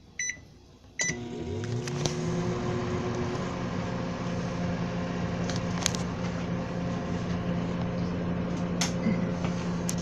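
Microwave oven being started: two short keypad beeps, then the oven comes on with a hum that rises in pitch for a second or so and settles into a steady hum as it heats a mug of water, with a few sharp clicks along the way.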